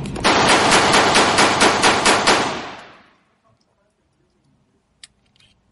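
Rapid string of gunshots, about five a second for some two seconds, starting a moment in, then dying away to near silence.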